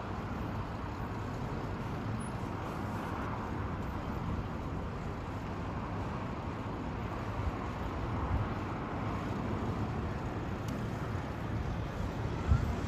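Airbus A350-900 airliner's Trent XWB turbofans heard from below on landing approach with the gear down: a steady, distant jet rumble that grows slightly louder in the second half. Wind buffets the microphone briefly near the end.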